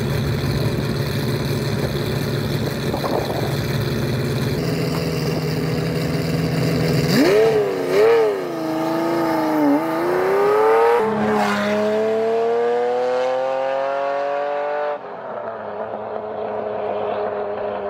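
Ferrari Testarossa's flat-12 engine idling, then blipped up and down a few times before accelerating away, its pitch rising through a gear change about eleven seconds in. About fifteen seconds in the sound cuts to a quieter, steady car engine note.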